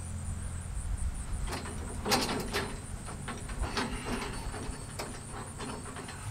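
Rolling steel scaffold tower being pushed and pulled by hand on its caster wheels, its frame clanking and rattling in a string of sharp knocks over a low rolling rumble, the loudest knock about two seconds in.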